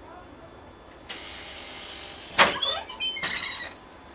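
A door being opened: a steady hiss, then a sharp clack about two and a half seconds in, followed by short high squeaks.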